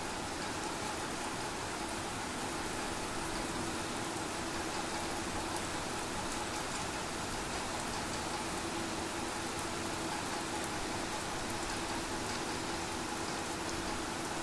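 Steady, heavy rain falling on a wet flat concrete rooftop, an even hiss of countless drops splashing into the standing water.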